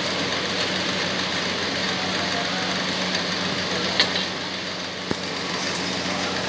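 Steady mechanical hum with a constant low drone, like a motor or fan running. Two short sharp clicks sound over it, about four seconds in and again a second later.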